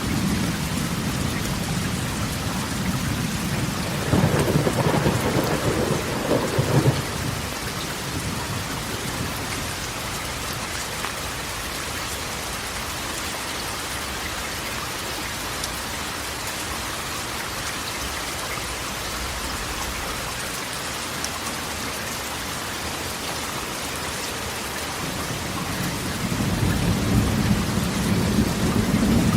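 Rain falling steadily on a corrugated metal roof, with thunder: a louder rumble about four to seven seconds in, and another low rumble building near the end.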